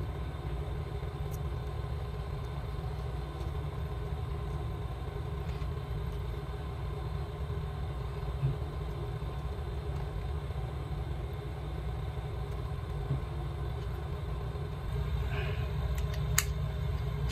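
Steady low background rumble, with a few faint clicks scattered through it.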